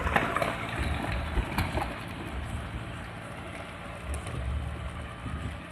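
Mahindra 275 tractor's diesel engine working under load as it pulls an 8-foot rotavator set full depth, the lever fully down, with the blades churning dry soil. The engine and rotor run steadily, with a few sharp clicks and knocks in the first second.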